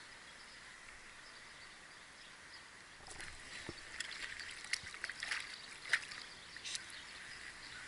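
Quiet flow of a stream, then from about three seconds in a run of small irregular splashes and drips as a hooked trout thrashes at the surface close by.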